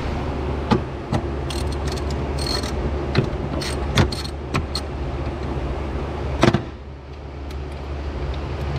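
Scattered sharp metal clicks and taps from a hand tool working at the car battery's terminals, irregularly spaced with the loudest about four and six and a half seconds in, over a steady low hum.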